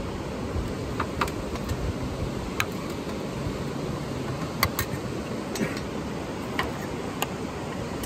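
Steel serving spoons clinking against stainless-steel bowls and a plate as food is dished out, about nine sharp scattered clinks over a steady rushing background noise.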